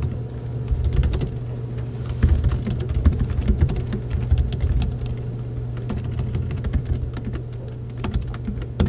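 Typing on a computer keyboard: quick, irregular key clicks, over a steady low hum.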